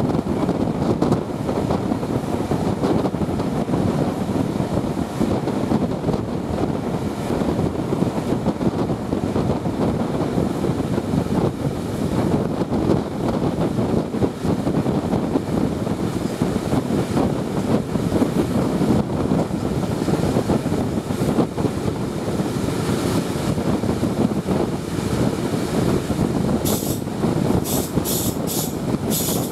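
Passenger train running along the line, heard from an open coach window: a steady rumble of wheels on rails with rushing air. Several short, high-pitched bursts come near the end.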